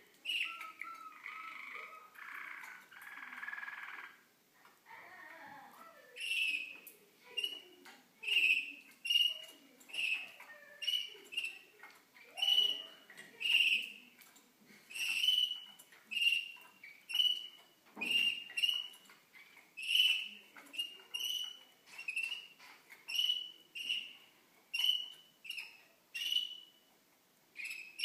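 Young Malinois Waterslager canaries calling in their cages. A short, high note repeats about once a second, with softer, varied twittering in the first few seconds.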